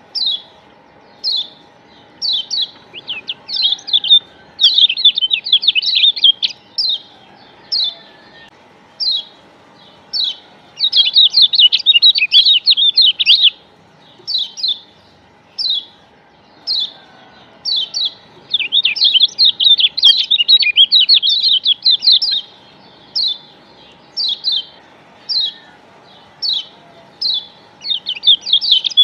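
Lombok yellow white-eye (kecial kuning, a Zosterops) calling loudly: sharp high single chirps about once a second, broken several times by rapid chattering runs of two to three seconds. It is a lure recording played to trigger a caged kecial into singing.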